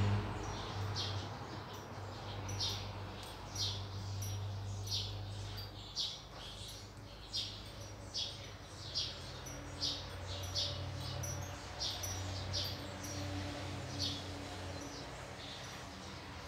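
A small bird chirping over and over, short sharp single chirps about once a second, with a low steady hum underneath.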